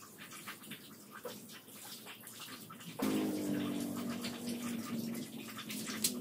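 Shiny green-screen fabric rustling and crinkling as it is smoothed out by hand over a tiled floor. About three seconds in, a steady hum of several low pitches starts suddenly and stays, louder than the rustling.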